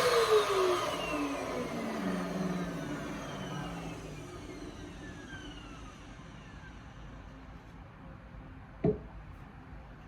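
Vacuum cleaner switched off, its motor whine falling in pitch and fading over several seconds as it spins down. A single sharp click near the end.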